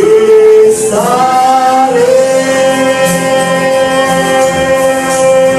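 Gospel vocal group with instrumental backing holding the song's closing chord. The pitch slides up twice in the first two seconds, then settles on one long sustained note.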